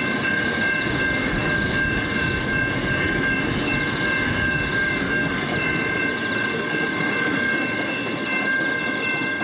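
Empty container wagons of a long freight train rolling past on steel rails: a steady rumble with a steady high-pitched squeal of several tones over it. The deepest part of the rumble thins near the end as the last wagon goes by.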